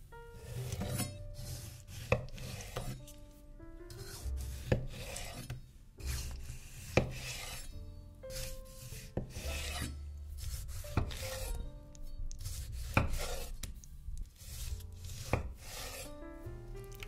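Knife cutting through food on a cutting board: each stroke scrapes through and ends in a sharp tap on the board, about every two seconds, over soft background music.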